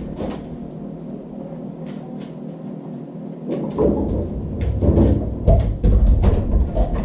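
Refrigerator door being tugged open by a dog with a rope rig, then knocking shut, with clicks, rattles and low thumps that get heavier about halfway through.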